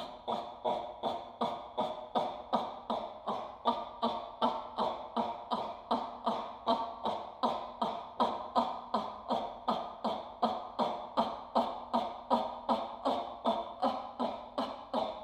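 A classically trained female singer performs a text score as short, clipped sung syllables in a steady even pulse, about three a second.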